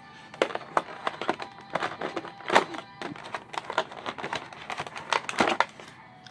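Irregular run of sharp clicks and crinkles from plastic game pieces and packaging being handled, with the loudest crack about two and a half seconds in.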